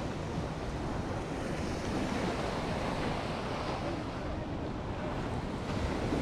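Steady rush of wind buffeting the microphone, mixed with ocean surf washing on the beach.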